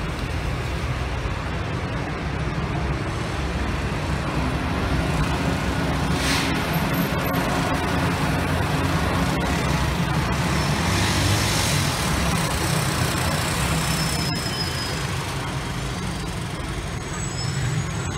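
Street traffic heard from above: a steady rumble of cars and a scooter driving past.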